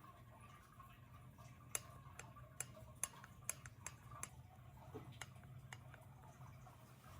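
Sharp clicks from the crank of a TQ HPR50 mid-drive e-bike as the pedals are pushed, coming about two or three a second and thinning out towards the end, over a faint steady hum. The clicking is the sign of a loose chainring, not the motor mount that was first suspected.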